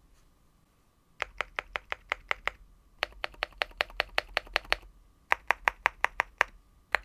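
Leobog Hi75 aluminium 75% keyboard with MMD Vivian linear switches, keys pressed about six times a second in short even runs with brief pauses between, starting about a second in.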